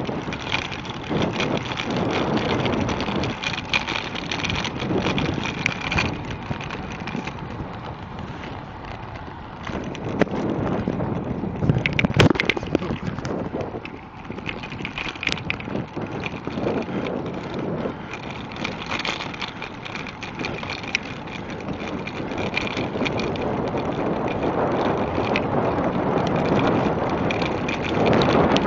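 Riding noise of a bicycle on an asphalt trail: wind rushing over the microphone and tyres rolling, with a sharp knock about twelve seconds in.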